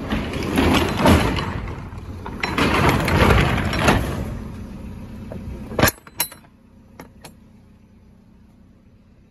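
Steel mesh drive-on ramp being lifted and swung up by hand: rough scraping and rattling for about six seconds, ending in one loud metal clank, then a few light clicks as it is latched.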